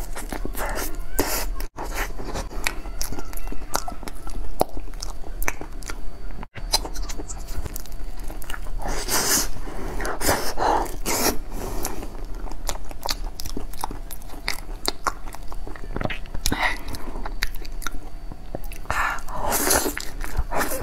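A person chewing and smacking on soft durian flesh, with many short mouth clicks and smacks throughout. The sound cuts out briefly twice, near 2 seconds and about 6 seconds in.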